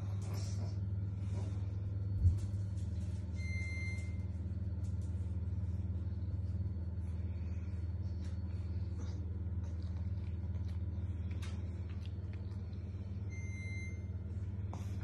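Steady low hum, with one thump a little over two seconds in and scattered faint clicks and taps. A short high tone sounds twice, about ten seconds apart.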